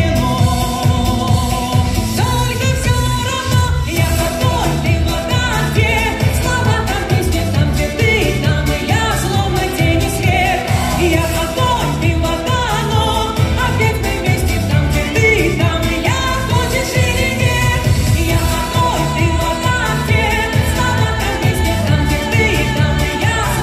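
A woman singing a Russian folk-pop song over an amplified backing track with a steady, heavy beat, heard through a concert hall's sound system.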